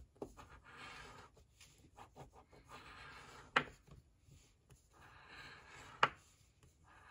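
A coin scratching the coating off a paper scratch-off lottery ticket on a hard table, in several short spells of rasping strokes, with two sharp clicks of the coin about three and a half and six seconds in.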